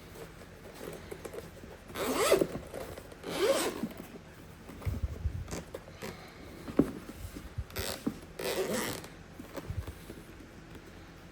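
Zipper of a zippered hard camera case being pulled open: two rasping zip strokes about two seconds in and two more around eight seconds in, with light handling knocks of the case between them.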